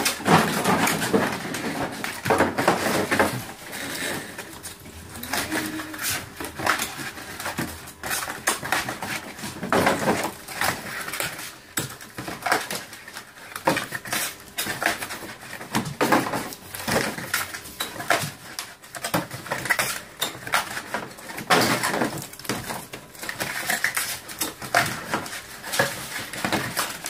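Thin cardboard shoebox blanks being folded and stacked by hand at speed: a continuous run of quick, irregular slaps, snaps and rustles of card.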